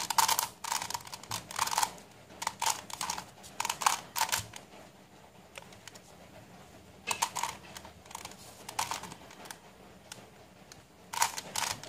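Plastic faces of a face-turning octahedron twisty puzzle turned by hand: runs of quick clicks and clacks in several bursts, with short pauses between them.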